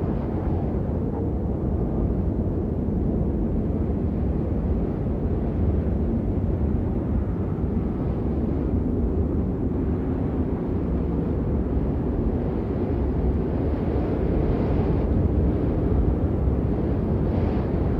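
Steady rain falling, a continuous even rushing noise that sits low and deep, with no separate drops standing out.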